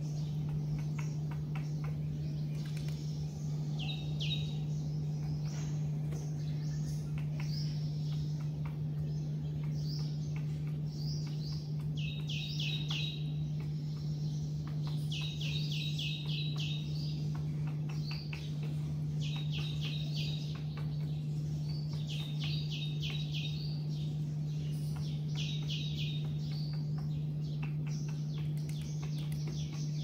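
Small birds chirping, with a rapid trilled phrase repeated every few seconds from about four seconds in, over a steady low hum. Light clicks run throughout as an Indian peacock pecks grain off a wooden tray.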